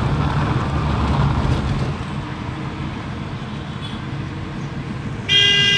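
Steady low rumble of engine and road noise heard from inside a car in city traffic. Near the end a vehicle horn starts, loud and steady.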